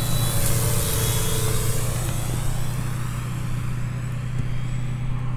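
Large quadcopter (Tarot 650 Sport on 17-inch propellers) flying overhead: a steady, low propeller hum over an even hiss.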